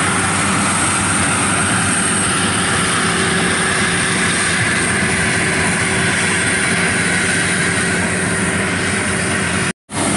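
Rice combine harvester running steadily at work, its engine, cutter and threshing machinery making one continuous loud mechanical noise as it harvests standing rice. The sound cuts out for a split second near the end.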